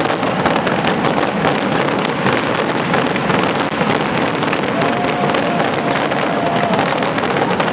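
Massive barrage of festival skyrockets (voladores) exploding, with countless bangs overlapping into one continuous din that never lets up.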